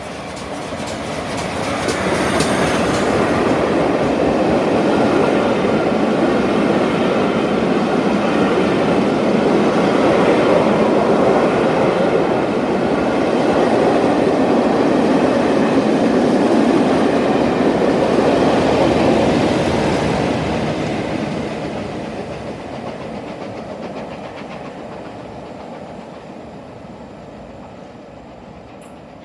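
GWR Castle class 4-6-0 steam locomotive 'Clun Castle' and its passenger coaches running through a station. The sound grows over the first few seconds as the engine comes alongside, stays loud while the coaches go by, and fades away over the last several seconds as the train recedes.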